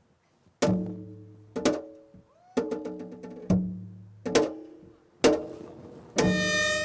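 Korean traditional instruments playing an instrumental introduction: a series of plucked or struck notes, about one a second, each ringing and fading, one bending in pitch, then a fuller sustained chord near the end.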